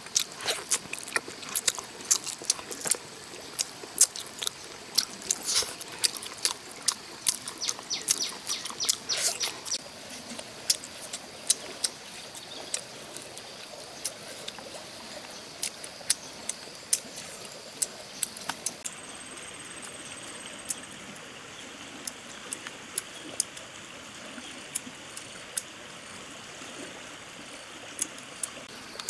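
Close-up eating sounds: wet mouth clicks and lip smacks as grilled fish is chewed and picked apart by hand, coming thick and fast for about the first ten seconds, then sparser. A faint, steady high insect buzz runs underneath.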